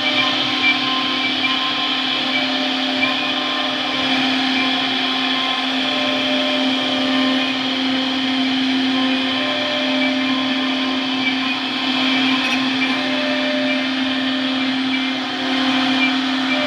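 CNC router spindle running steadily with a constant whine. Short repeating tones come and go over it as the axis motors move the tool through a cut.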